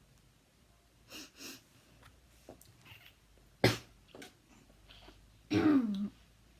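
A child coughing, the harsh cough of habit cough. A couple of small coughs or breaths come about a second in, then a sharp single cough about three and a half seconds in, and a longer, louder cough whose pitch drops near the end.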